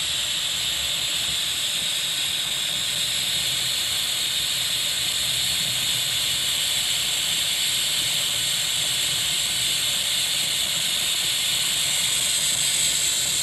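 Steady hiss of steam venting through the floating bobber valve in the lid of an Oster electric multi-cooker as it heats up. The valve has not yet sealed: pressure is still building before pressure cooking begins. The hiss grows a little louder near the end.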